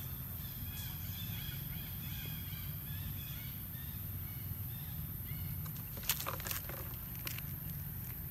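A run of short, high chirping calls, several a second, for the first five seconds or so, then a few sharp plastic clicks about six seconds in as a water bottle is handled.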